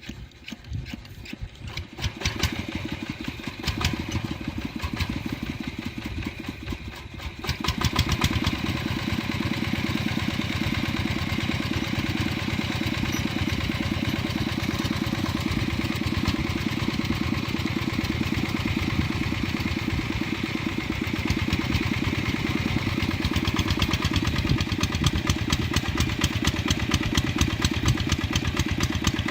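Tractor engine running with a fast, even beat, fainter at first and louder from about seven seconds in, then holding steady.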